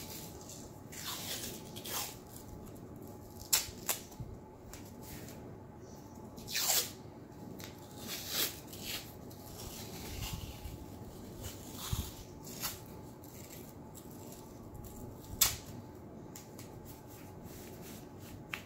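Athletic tape being pulled off the roll and torn in short pulls while a heel lock is wrapped around an ankle, with hands rubbing the strips down. A few sharp snaps stand out, the loudest about fifteen seconds in.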